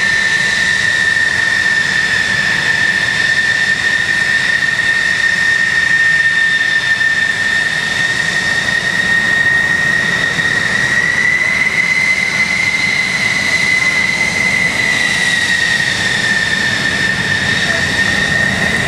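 Military jet engine running with a steady high-pitched whine over a low rumble; the whine rises a little about eleven seconds in and eases back down a few seconds later.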